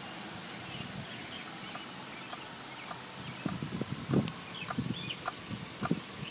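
Light, evenly spaced clicking, about one and a half clicks a second, from the electrics of a 2006 Ducati 999 that won't turn over with the key on. The owner hears a ticking down by the battery as well as the ticking that goes with the flashing dash lights. A few faint bird chirps and handling bumps come in around the middle.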